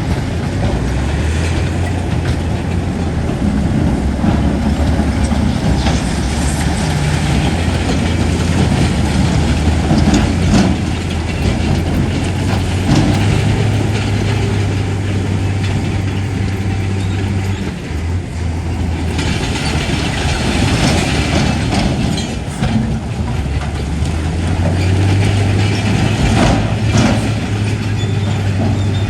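Crawler bulldozer's diesel engine running under load, its pitch shifting a little as it works, with the clank and clatter of steel tracks and scattered metallic knocks.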